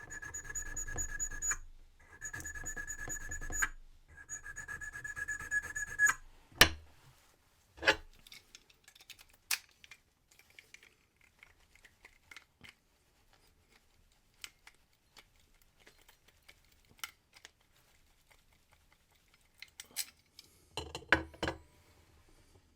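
A hand file rasping across a brass key blank in three short bouts of quick, even strokes, taking down the marks left while impressioning the key. Two sharp knocks follow, then scattered light clicks and a brief cluster of clicks near the end.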